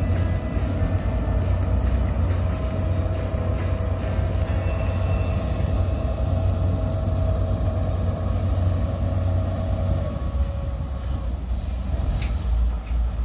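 Tugboat engine running steadily with a low rumble as it pushes the car ferry raft. About ten seconds in its note steps down, and a single sharp click sounds near the end.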